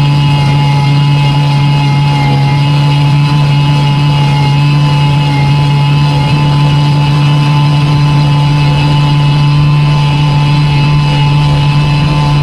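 Homemade boat's motor running steadily at one constant speed, with no change in pitch.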